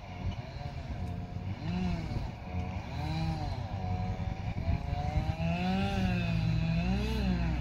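An engine running steadily, its pitch swinging up and down about once a second.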